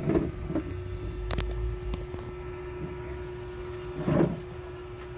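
Light handling noise as multimeter test probes and leads are picked up and moved over a laptop motherboard: a few sharp clicks and a short rustle about four seconds in, over a steady electrical hum.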